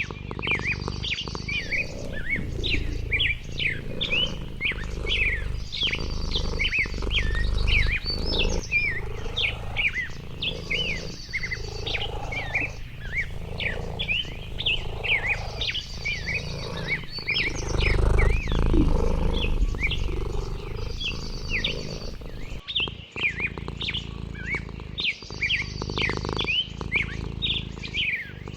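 Several songbirds chirping in a busy, unbroken chorus of quick notes, with a short buzzy trill repeating every few seconds. Under it runs a low rumble that swells about eight seconds in and again around eighteen seconds.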